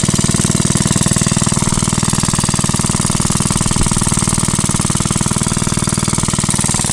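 Single-cylinder Briggs & Stratton WMB washing-machine engine running steadily, driving an old piston air pump that is filling a flat tire through an air hose; a fast, even chugging beat.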